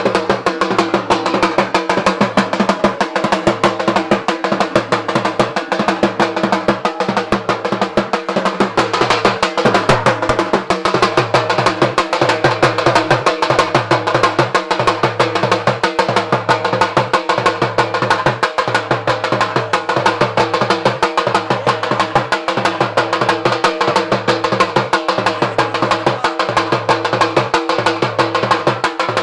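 Dhol, a large double-headed barrel drum, beaten with sticks in a fast, continuous rhythm, with a steady low tone underneath that breaks briefly about every two seconds.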